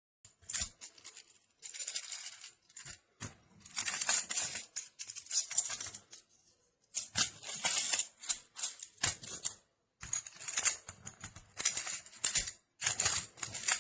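Small magnetic plastic building blocks being handled: bursts of clicking and clattering as pieces snap together and knock against each other, with short pauses between the bursts.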